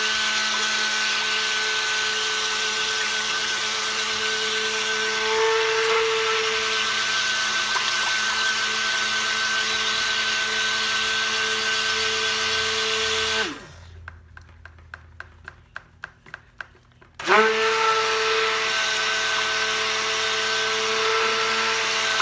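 Immersion stick blender running steadily in raw soap batter, blending it toward a thick trace. About 13 seconds in the motor winds down and stops, faint quick ticks follow in the pause, and some 3–4 seconds later it starts up again and runs on.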